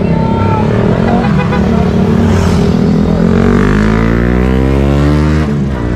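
A motor vehicle engine running close by, then accelerating with a steadily rising pitch for a couple of seconds before the pitch breaks off sharply near the end, as at a gear change or a let-off of the throttle.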